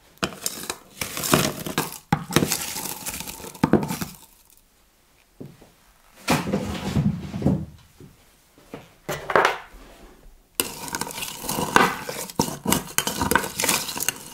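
Crushed ice added to a tall glass in several separate loads, falling onto the drink with a crunchy clatter. In the last few seconds a bar spoon stirs through the ice, clinking against the glass.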